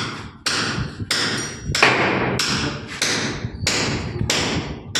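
Claw hammer striking a wooden block held against the head of a door frame, a steady run of knocks a little under two a second, tapping the frame into position. Each blow rings on in the bare, hard-walled room.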